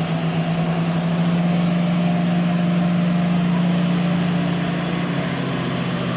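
Heavy truck engine running loudly and steadily, an even engine note with no revving, as trucks work to tow a sugarcane truck bogged in mud.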